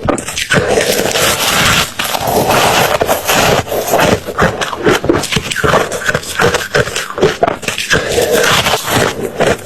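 Ice being chewed close to the microphone: loud, rapid, irregular crunching and crackling.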